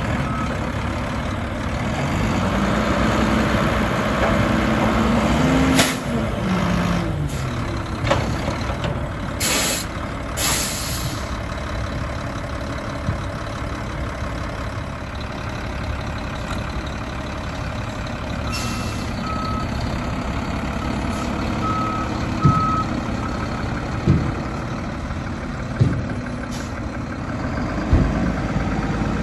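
Mack LR front-load garbage truck with an Amrep body working a dumpster: the engine revs up and falls back to drive the hydraulic lift arms, with clanks and sharp hisses of air. Later a backup alarm beeps several times and the truck moves off.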